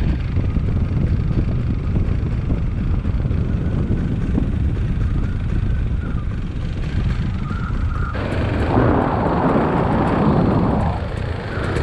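Tandem paramotor trike's engine and propeller running steadily in flight, with wind buffeting the microphone. From about eight seconds in, a louder rush of wind noise lasts for about three seconds.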